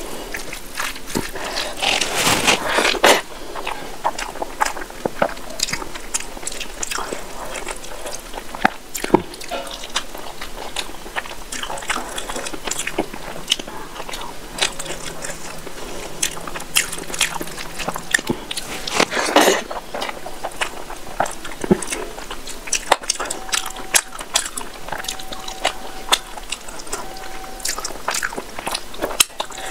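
Close-miked eating sounds: a bare hand squishing rice into fish curry on a plate, and chewing of mouthfuls of rice and fish, with many small wet mouth clicks. Two louder, longer rustling smears stand out, about two seconds in and again near the twentieth second.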